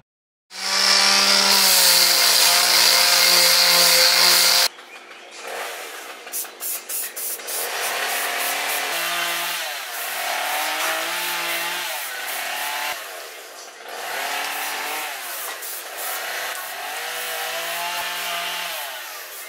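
Aerosol spray paint can spraying in bursts of hiss with a whistling tone. One long loud burst comes first, then a run of short clicks, then several shorter bursts.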